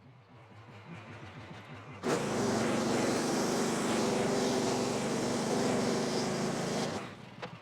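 Portable bandsaw sawmill's engine running, with a much louder stretch that starts abruptly about two seconds in and stops sharply about five seconds later.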